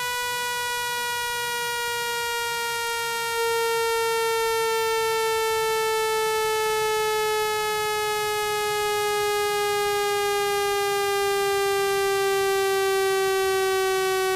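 Synthetic speaker-cleaning tone: a steady, buzzy electronic tone rich in overtones, sliding slowly down in pitch and stepping up a little in loudness about three and a half seconds in.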